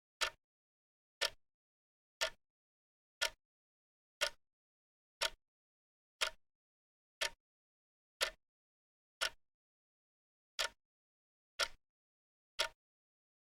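Wrist watch ticking: sharp, single clicks about once a second with silence between them, and one slightly longer gap about two-thirds of the way through.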